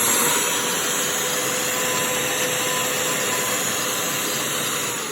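Shark CH951 UltraCyclone cordless handheld vacuum running steadily with a constant high whine over its suction noise, then starting to wind down near the end. It is sucking at acorns that it lifts into the nozzle but cannot hold.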